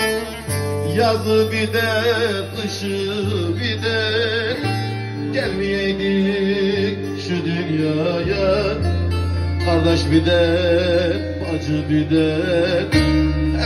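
Turkish folk music: a long-necked bağlama (saz) played through a microphone, with a man singing a wavering, ornamented melody, over sustained low bass notes that change every second or few.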